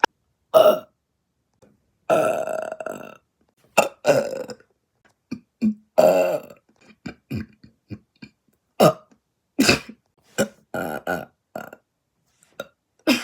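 A person burping repeatedly, about a dozen burps in quick succession: most short, a few drawn out for about a second each.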